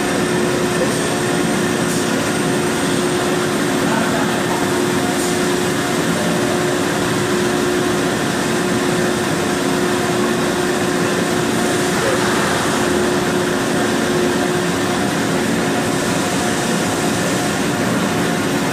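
Citizen A20VII CNC Swiss-type lathe running under power: a steady mechanical drone of motors and pumps with a few constant tones, one low and one high and thin.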